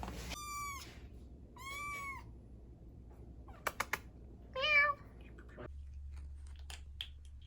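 A cat meowing three times, short high-pitched calls that rise and fall in pitch, with a quick run of three sharp clicks just before the last one.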